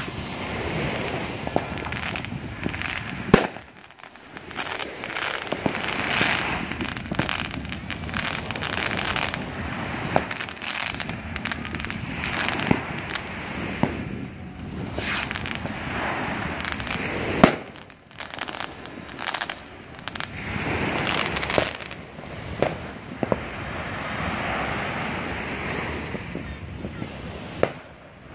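Fireworks going off: steady crackling and fizzing with sharp bangs scattered throughout, the loudest about three seconds in and again just past halfway.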